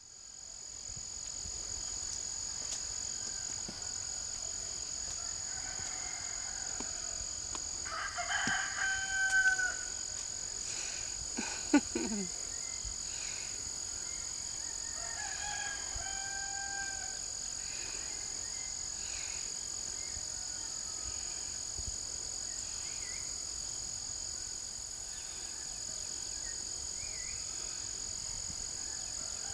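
Steady high-pitched insect chorus with a rooster crowing twice, about eight and sixteen seconds in. A single sharp knock near twelve seconds is the loudest moment.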